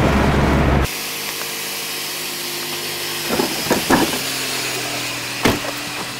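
Low rumble of a moving car heard from inside the cabin, cut off abruptly about a second in; then a car engine idling with a steady hum, broken by a few sharp knocks around the middle.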